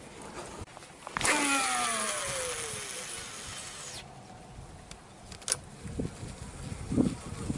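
Fishing reel spool whirring as line pays out on a cast: it starts suddenly with a hiss and a falling whine that fades as the spool slows over about three seconds. A sharp click follows about a second and a half later, then a few soft knocks near the end.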